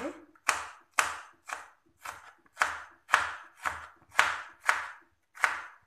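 Large kitchen knife slicing a peeled raw potato on a plastic cutting board, each cut ending in a sharp tap on the board: about ten cuts at a steady two a second.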